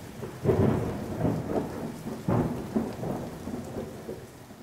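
Thunder rumbling over steady rain, with two strong rolls, about half a second in and a little after two seconds, dying away toward the end.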